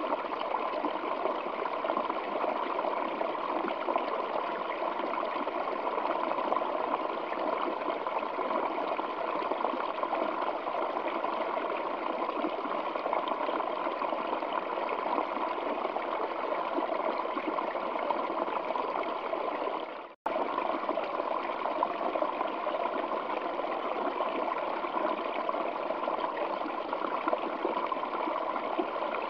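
Waterfall flowing over rocks: a steady, dense rush of falling water. It cuts out for an instant about two-thirds of the way through, then carries on.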